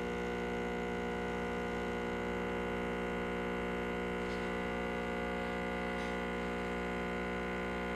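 Breville Infuser espresso machine's vibratory pump humming steadily while it pulls a double espresso shot.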